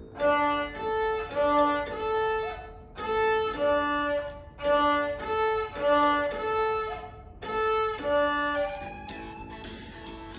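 Violin tune played in short phrases of quick notes, separated by brief pauses. About two seconds before the end the tune stops and a quieter, busier accompaniment carries on.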